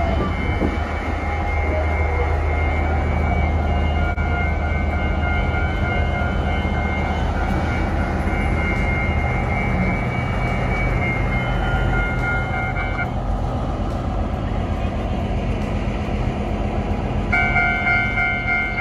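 Taiwan Railways R157 diesel-electric locomotive running with a steady low engine hum while it turns on the roundhouse turntable. A steady high-pitched tone sounds over it, stops about two-thirds of the way through and comes back near the end.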